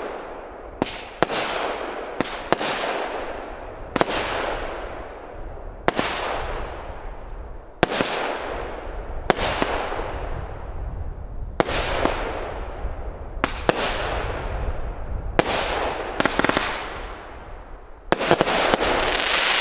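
Euregio Feuerwerk Green Smaragd Category 2 fireworks battery firing shot after shot, about one every second or two, each a sharp bang trailed by a fading hiss of burning stars. Near the end a louder, denser stretch of noise begins suddenly and runs on.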